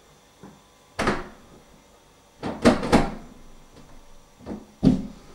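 A door being handled: a series of sharp clunks and knocks, one about a second in, three close together near the middle and a heavier one near the end, as of a door being shut.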